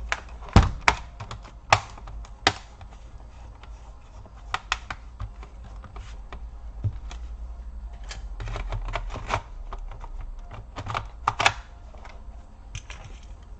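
Irregular sharp clicks and taps of plastic and small parts as a laptop's bottom cover is fitted back on and fastened, over a steady low hum.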